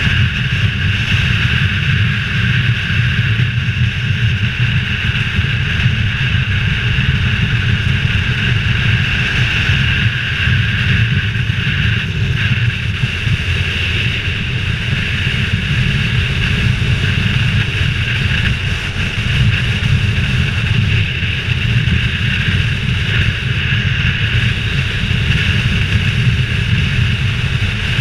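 Motorcycle riding at steady road speed, heard from a helmet-mounted camera: wind rushing over the helmet over a continuous low engine and road drone.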